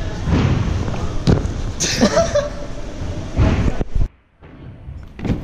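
Wind buffeting and rumble on the microphone of a body-worn action camera as its wearer moves about, with a few louder swells. The sound drops away abruptly about four seconds in, then rises again near the end.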